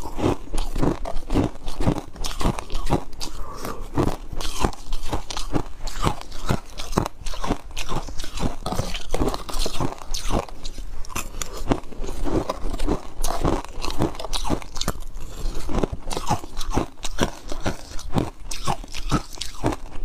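Ice cubes coated in matcha powder being bitten and chewed, close to the microphone: a steady run of sharp crunches, about two or three a second, bite after bite.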